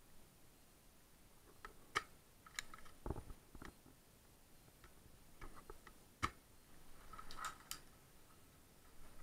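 Faint, scattered sharp clicks and knocks, about a dozen spread irregularly, with a duller low thump about three seconds in.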